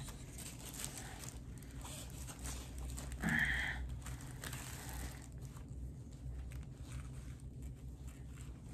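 Faint rustling and crinkling of packaging being handled, with one short pitched vocal sound a little over three seconds in.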